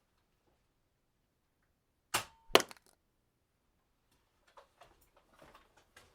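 Two sharp gunshot cracks about half a second apart, the second louder, followed about two seconds later by a run of faint small clicks and rattles.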